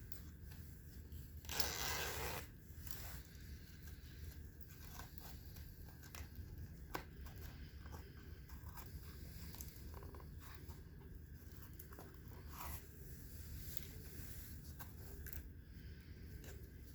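Handwork on a leather wallet: a brief rasping tear about a second and a half in, then scattered small clicks, taps and rustles over a low steady hum.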